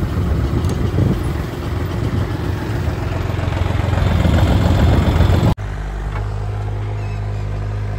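Tractor engine running under way, with a dense rattling noise. About five and a half seconds in, the sound cuts abruptly to a steadier, even engine hum.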